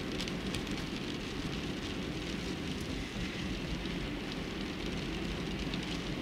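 Steady road and engine noise heard inside a car's cabin while driving slowly in traffic, with a few faint clicks in the first second.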